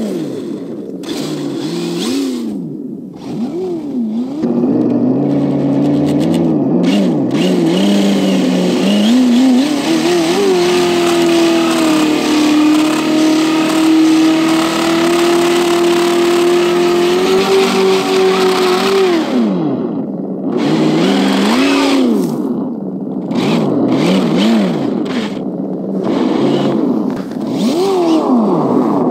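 Simulated engine sound from an RC truck's ESS-One sound kit, played through its speaker and revving up and down in repeated throttle blips. About ten seconds in it holds at one steady high rev for several seconds, then falls back to short rises and falls.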